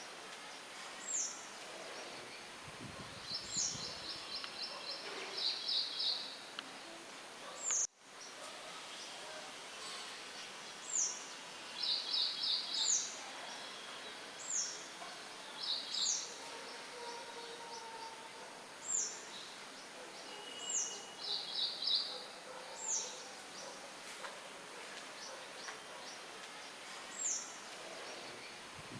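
Songbirds chirping over a steady hiss of wind: short high chirps that drop in pitch, every second or two, and quick rattling trills. A low gust of wind comes about two to four seconds in, and the sound cuts out for an instant about eight seconds in.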